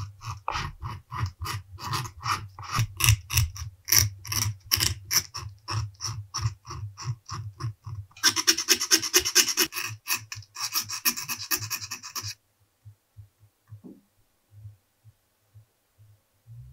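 A craft-knife blade scratching the grain surface of vegetable-tanned leather, roughing it up for gluing. It goes in short strokes about four a second, then turns into faster, continuous scratching in two bouts, and stops about twelve seconds in.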